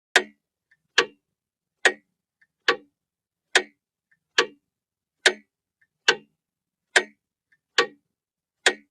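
Clock ticking steadily, a sharp tick a little under once a second, with a much fainter click between some ticks.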